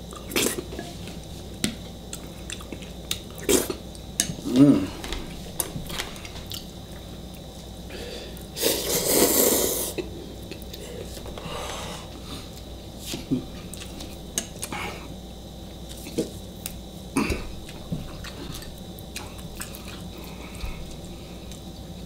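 Eating noises: a spoon and chopsticks clicking now and then against ceramic bowls, with chewing. A loud slurp of Shin ramen noodle soup lasts about a second and a half, about nine seconds in.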